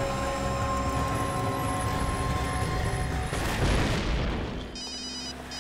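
Tense background music, then an explosion sound effect about three and a half seconds in, a bomb blast that swells and dies away. Near the end an electronic phone ringtone starts beeping.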